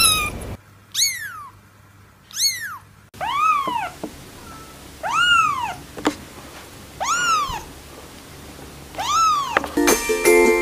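Young kittens meowing: a string of about six short, high meows, each rising and then falling in pitch, one every second or two. Light music starts near the end.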